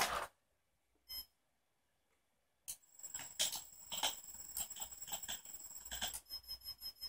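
High-pitched electronic whine from a homemade RC car's electronics, pulsing on and off, first irregularly and then in a fast, even beat near the end. A short beep about a second in, and a brief burst of noise at the very start.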